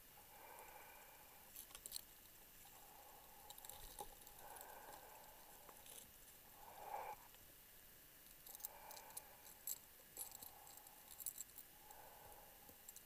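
Faint breathing through a closed-circuit rebreather underwater: soft hissy breaths about a second long, every two to three seconds, with no bubble sound. Scattered light clicks and taps, busiest in the second half.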